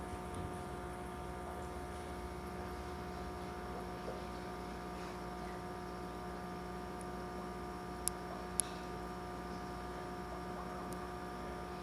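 Steady hum of the fish room's aquarium air supply running the sponge filters, holding several steady tones. Two short sharp clicks come about eight seconds in, half a second apart.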